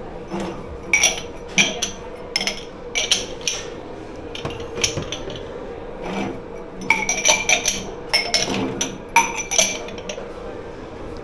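Crockery, cutlery and glassware clinking and clattering as they are handled and stacked in a dish pit, many sharp ringing knocks in quick clusters, over a steady hum.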